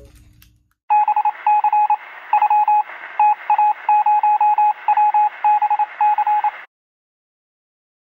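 Electronic beeping sound effect: runs of short, quick beeps at one pitch over a thin hiss, like a retro computer loading. It starts about a second in and cuts off abruptly near the end.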